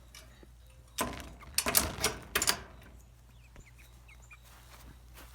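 A short run of sharp clattering knocks and rustles, about one to two and a half seconds in, then a few faint short chirps from the chickens.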